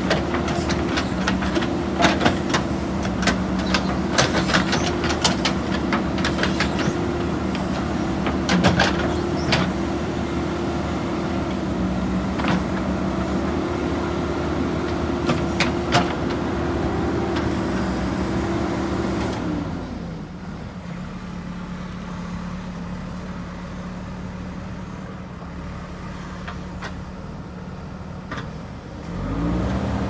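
JCB 3DX backhoe loader's diesel engine running at working revs while the backhoe bucket digs and scrapes soil, with many sharp knocks and clatters of bucket and stones. About two-thirds in the engine drops to a quieter idle and the knocks mostly stop, then it revs up again just before the end.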